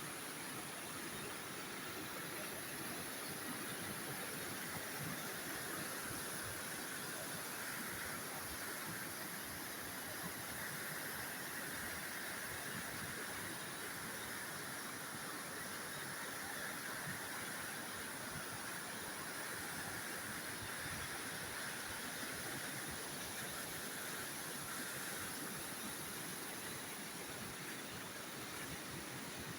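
Steady rushing noise of a waterfall, even throughout, with a constant high hiss above it.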